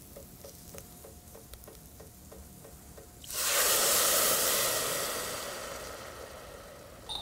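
Dry white wine poured into a hot pot of toasting risotto rice, hitting the pan with a sudden loud sizzle about three seconds in that fades away gradually. A light clink near the end.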